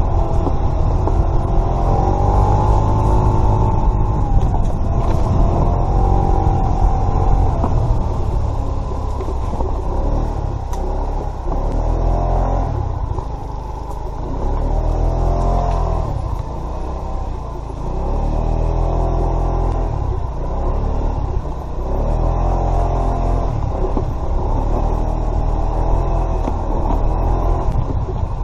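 Kymco Agility 50 scooter's small single-cylinder engine running under load, its pitch rising and falling again and again as the throttle opens and closes on a rough woodland trail, over a heavy low rumble.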